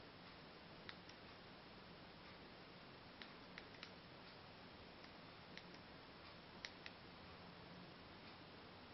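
Near silence: steady low hiss with about a dozen faint, short clicks scattered irregularly, some in quick pairs.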